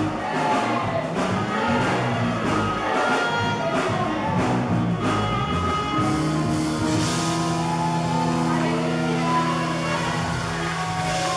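Live worship band music, with a drum beat about twice a second under the instruments. About halfway through the drums stop and a long sustained chord rings out, as at the close of a song.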